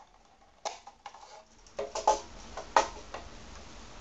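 Sharp plastic clicks and knocks from a panel-mount temperature controller's case being unlatched and its circuit board pulled out of the black plastic housing. There are about half a dozen separate clicks, the loudest near the end.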